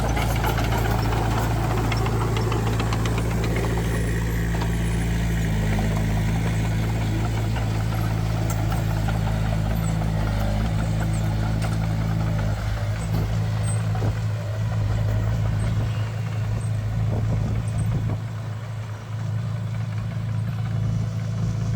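Heavy diesel construction machinery running steadily with a low, even engine hum. A few short knocks and clanks come in the second half.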